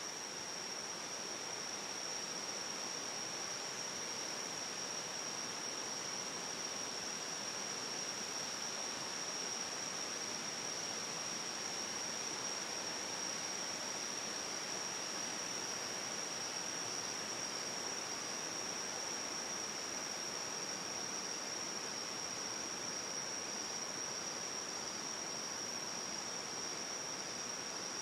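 Tropical rainforest ambience: a steady, high-pitched insect drone, such as a cicada chorus, holds one pitch throughout over an even hiss of forest noise.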